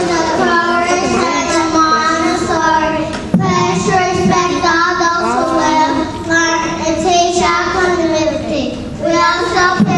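Young children singing into a microphone, holding long notes.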